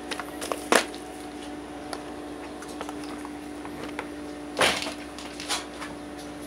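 Handling noise from unpacking a plastic tool case holding a cordless drill kit: a few light clicks and knocks, with a louder knock about four and a half seconds in, over a steady low hum.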